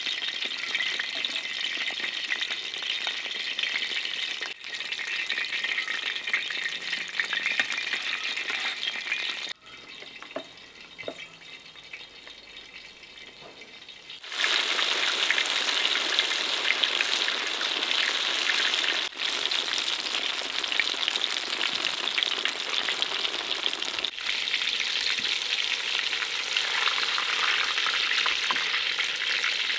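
Eggplant slices frying in hot oil in a wide black metal pan: a steady sizzle and crackle. About ten seconds in it drops much quieter for a few seconds, then comes back loud and keeps going.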